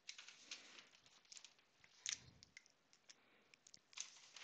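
Near silence: room tone with a few faint, short taps and rustles, the clearest about two seconds in.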